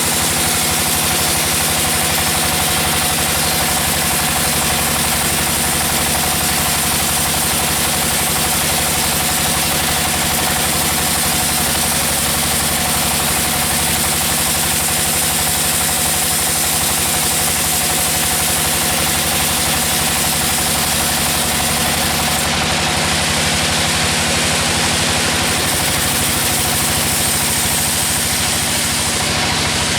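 Sawmill machinery running steadily: a loud engine drone with a strong hiss. The engine note shifts about four seconds before the end.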